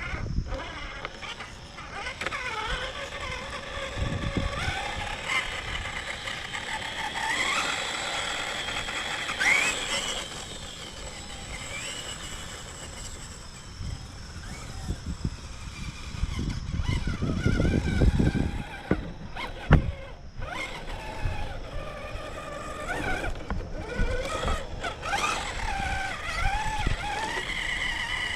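Whine of an RC crawler's Holmes Hobbies 13-turn 3-slot 550 motor and drivetrain, rising and falling in pitch as the throttle is worked. About two-thirds of the way through there is a stretch of low rumble and a couple of sharp knocks.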